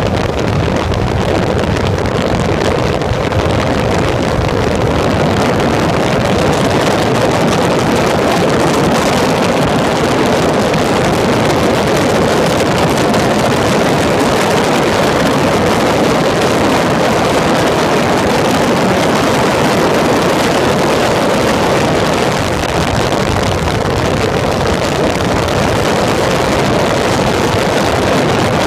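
Onboard sound of a Peugeot racing prototype at speed: the engine running loud and steady, mixed with wind buffeting the microphone.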